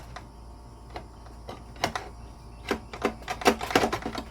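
Scattered sharp metallic clicks and knocks as a miter saw blade and its fastening parts are handled and lifted off the arbor. They come in the second half, several close together.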